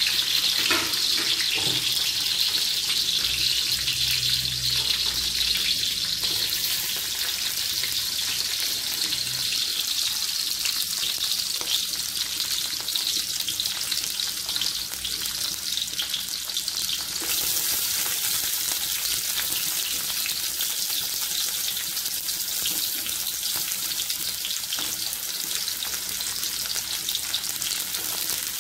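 Sliced garlic, onion and curry leaves sizzling in hot oil in a wok, with fenugreek seeds and black pepper: a steady frying hiss that turns brighter about seventeen seconds in.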